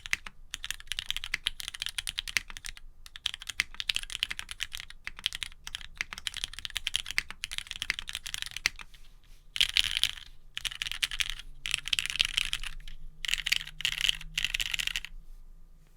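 Fast typing on a Geon Works F1-8X custom mechanical keyboard, with its case foam only. It has lubed and filmed Cherry MX Black (Hyperglide) linear switches in an aluminium plate, PBT keycaps and a polycarbonate bottom. The dense run of keystrokes has a few short pauses and stops about fifteen seconds in.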